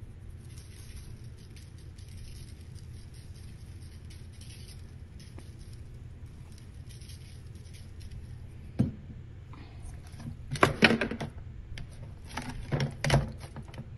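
A seasoning shaker is shaken over raw poultry in repeated short bursts, giving a faint rattling hiss over a low steady hum. In the last few seconds come a sharp knock and two bursts of loud knocking and clatter as a plastic bowl is handled in a stainless steel sink.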